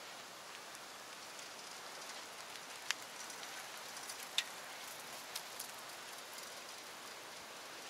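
Steady faint hiss of outdoor ambience, with a few sharp ticks near the middle.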